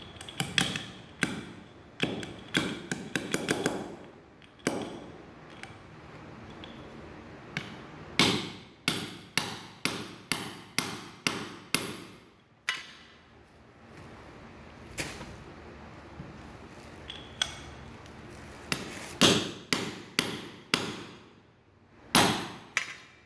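Steel hammer striking a socket used as a drift, driving a ball bearing into a brush cutter's gearbox housing. Sharp metallic blows come in runs, a quick flurry at first and then about two strikes a second, with pauses and single hits between.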